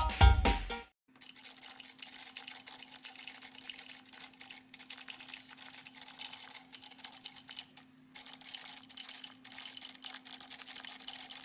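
A laptop making a strange noise: a steady buzzing hum with a high hiss and fast, irregular crackling clicks, starting about a second in.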